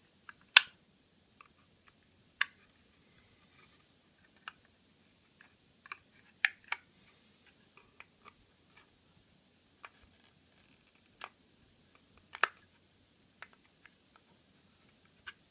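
Metal tweezers clicking and scraping against the stamped metal shield over an access point's circuit board as they pry at its edge. The clicks are sharp and irregular, about a dozen in all, the loudest about half a second in and another near the end.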